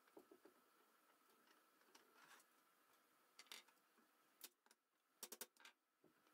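Quiet, scattered clicks of hand tools working chicken wire onto a wooden frame: needle-nose pliers crimping the wire and a hand staple gun pressed to the frame. About five seconds in comes a quick run of three or four sharper snaps.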